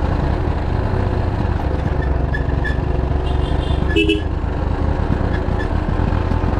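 Motorcycle engine running steadily, with a rapid pulsing low rumble, while riding down a steep road. A short horn beep sounds about four seconds in.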